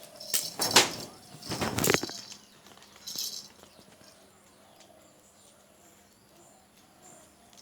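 Goats bleating: two loud, harsh calls in the first two seconds and a short, higher sound about three seconds in, then only faint sounds.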